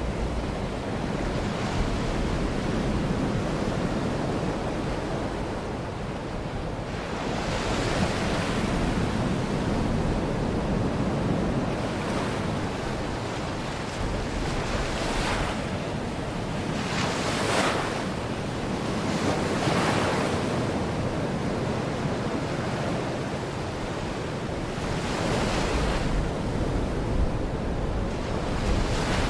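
Baltic Sea waves washing onto a beach, the surf swelling up every few seconds, with wind rumbling on the microphone.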